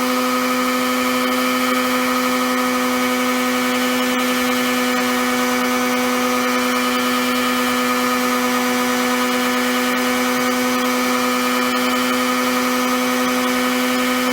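Harbor Freight heat gun running steadily on high, its fan motor giving a constant, unchanging whine over a rush of air. It is heating an aluminium chainsaw crankcase half so the crankshaft bearing can be punched out.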